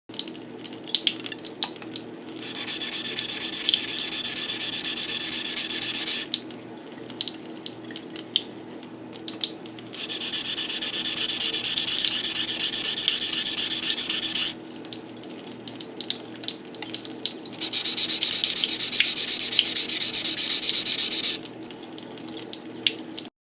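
Yanagiba blade being ground on a whetstone: three long stretches of steady scraping, each a few seconds, with scattered light clicks between them as the blade is lifted and repositioned.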